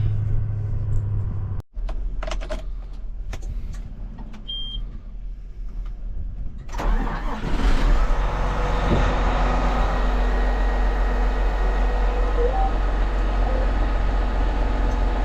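Clicks and knocks, then about seven seconds in a motor starts up sharply and runs steadily with a strong low hum to the end.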